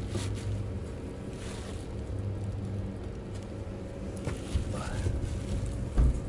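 A steady low hum, with a few light knocks in the second half as a car engine's cylinder head is handled and turned over, the strongest knock near the end.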